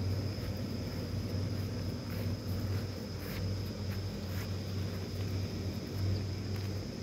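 Steady low hum of the electric blower fans that keep the inflatable Halloween figures up, with a thin, steady high-pitched tone above it and a few faint ticks in the middle.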